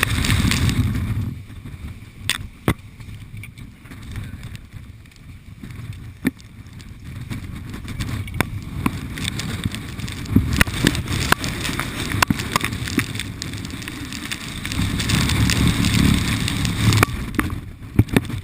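Strong wind buffeting the microphone in gusts, a low rumble that swells near the start and again later on, over a steady hiss. Scattered sharp ticks and clicks, some quite loud, run through it.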